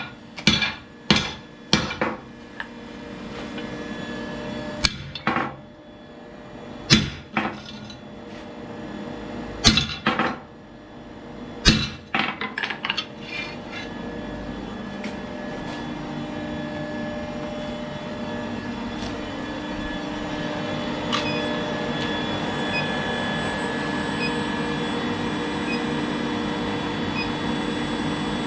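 Sharp metal clanks and knocks, about a dozen at irregular spacing over the first dozen seconds, each with a short ring, then a steady machine hum with a few steady tones that runs on to the end, a high thin whine joining it about two-thirds of the way in.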